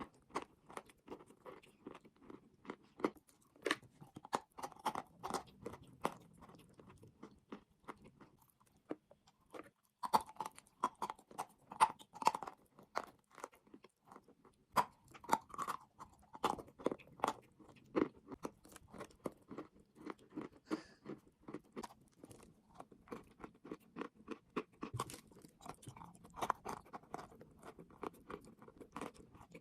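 A person chewing chalk and clay in a fast run of crisp crunches. The crunching stops briefly about eight seconds in, then picks up again.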